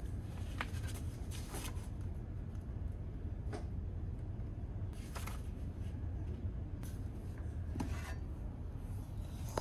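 Soft rustles and light handling noises as a book is opened and leafed through, a few short brushes scattered over the seconds, over a steady low hum.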